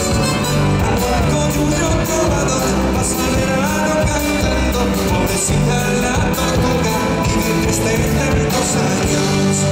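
Live amplified band music: a man singing lead into a microphone over electric bass and drums, with a steady beat.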